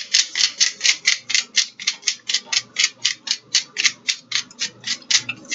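Hand-held spice grinder being twisted over the bowl: a steady run of short, gritty grinding rasps, about four a second, as seasoning is ground onto the salad.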